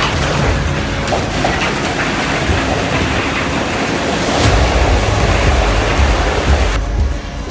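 Loud rushing storm noise with wind buffeting the microphone; a deeper rumble comes in about halfway through, and near the end the sound changes abruptly and loses its hiss.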